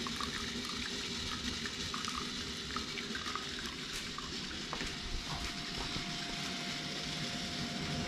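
Thin stream of cooling water from the reflux condenser's outlet hose pouring steadily into a stainless steel bucket of water. A faint steady tone joins about five seconds in.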